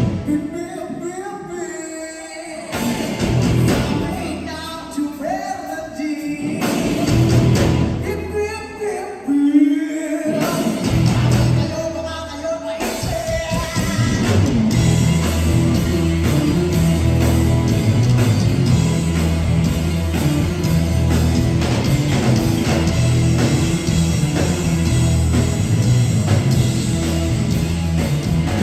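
Rock band playing with singing: a sparser passage with short breaks over the first half, then the full band with drums and guitar comes in steadily for the rest.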